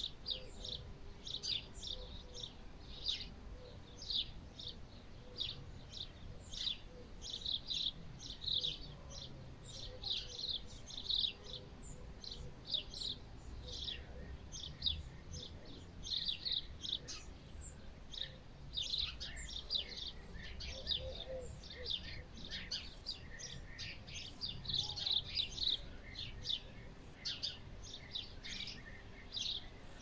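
Many small birds chirping continuously, their short high calls overlapping, over a low steady rumble.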